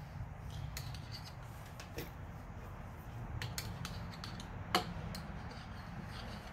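Faint scattered clicks and light metal taps from a lube container and fingers working over the crankshaft and timing gears of an opened Honda GX390 engine, with one sharper click about three-quarters of the way in. A low steady hum runs underneath.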